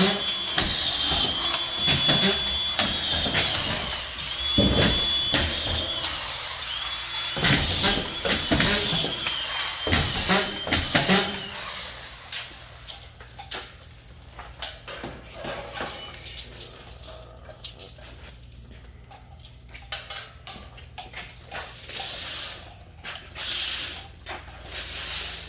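Drywall screw gun whining in short bursts, one every second or two, as screws are driven into drywall sheets. Then quieter scattered knocks and handling noise.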